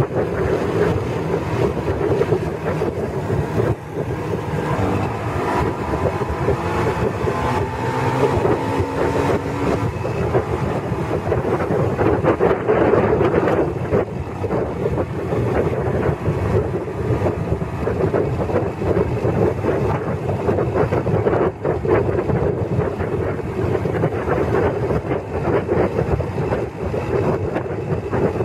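Motorcycle on the move, its engine running under heavy wind buffeting on the microphone. A rising engine tone comes through a few seconds in as it speeds up.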